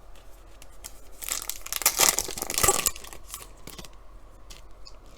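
Plastic foil trading-card pack wrapper being torn open and crinkled, a crackly burst lasting about two seconds, followed by a few faint handling clicks.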